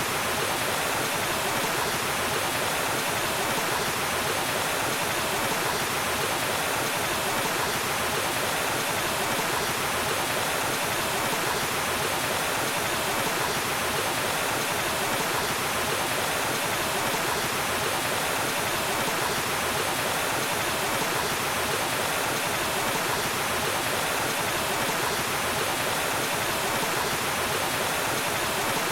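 Waterfall: a steady, unbroken rush of falling water, even and hissy, without change.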